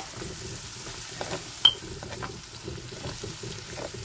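Tomato, onion and ginger-garlic masala sizzling in a frying pan while a plastic spoon stirs it, with short scrapes and taps against the pan and one sharp knock about one and a half seconds in.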